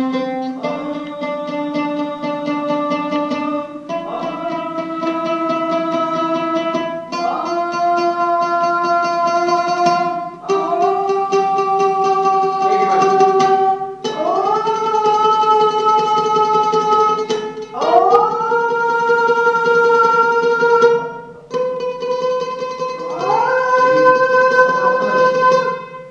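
A man singing a rising scale on held vowel notes, about eight in a row, each held for about three seconds and slid up into from below. This is a vocal-range test: he climbs note by note toward the top of his range.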